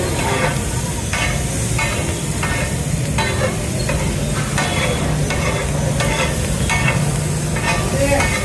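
Oil and vegetables sizzling in a pan while the pulao's tempering is stirred, with a metal spatula scraping and clinking against the pan about once or twice a second over a steady low hum.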